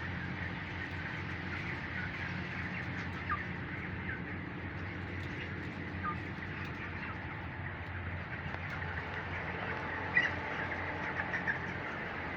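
A flock of broiler chicks and chickens peeping and chirping continuously, many calls overlapping, with a few louder single calls standing out. A steady low hum runs underneath.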